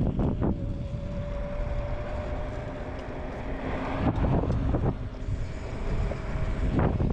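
TurboAnt V8 electric scooter riding along a concrete sidewalk: wind buffeting the microphone over a low tyre rumble, with a steady high whine from the 450-watt hub motor. A few knocks, several close together about four seconds in and another near the end, as the wheels cross the slab joints.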